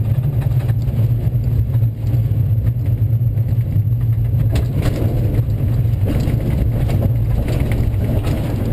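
Steady low rumble of airflow and the Schweizer SGS 2-33A glider on its landing, with a few short knocks in the middle.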